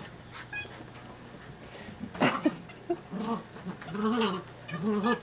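A wiggly giggly ball toy giggling as a puppy noses it along: a loud rattling burst about two seconds in, then several short warbling giggles that rise and fall in pitch.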